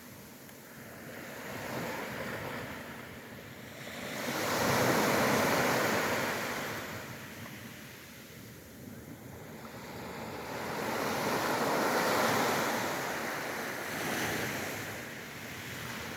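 Ocean waves breaking and washing on the shore, the surf rising and falling in slow swells, about two large ones with smaller surges between, with some wind on the microphone.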